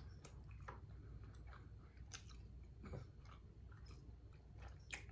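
A person chewing food: faint, irregular soft clicks and smacks of the mouth, one slightly louder near the end.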